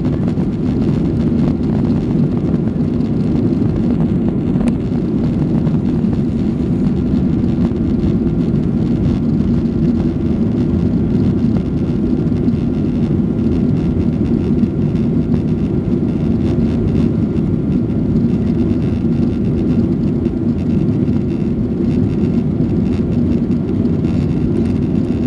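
Jet engines at takeoff thrust and the rush of air, heard inside a Boeing 737's cabin during the takeoff run and climb-out: a steady, loud, low drone that does not change.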